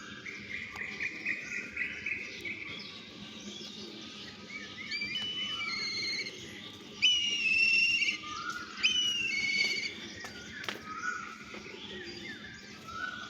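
Birds singing and calling: a fast trill in the first couple of seconds, then clear whistled notes that jump in pitch, loudest about seven and nine seconds in, with softer chirps throughout.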